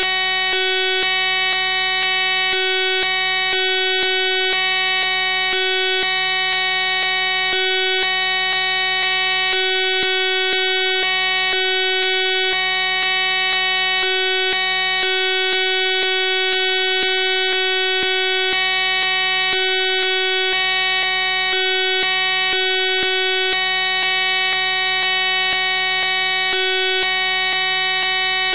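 Loud, steady electronic buzz made of many fixed tones stacked high and low, with a low hum that cuts in and out every second or so.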